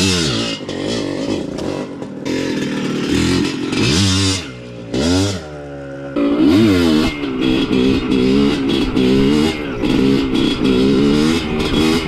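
Yamaha DT125 two-stroke single-cylinder engine revving hard and dropping back again and again as the bike is ridden in wheelie attempts, its pitch rising and falling with each throttle blip.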